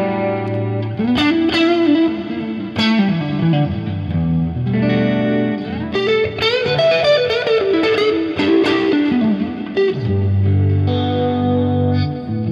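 Electric guitar played through a Fractal Axe-Fx III modelling a crunchy Suhr Badger 18 amp, with a dual-detune pitch effect and delay giving a chorus-like 80s shimmer. Held chords alternate with a melodic line of notes that bend and slide.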